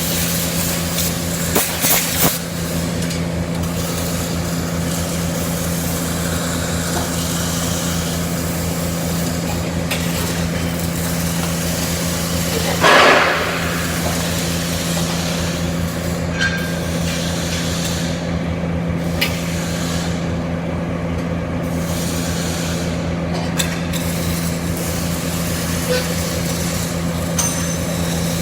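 CO2 (MIG) welding: a continuous hum with a broad hiss, with a brief louder swell about 13 seconds in and a few short clicks.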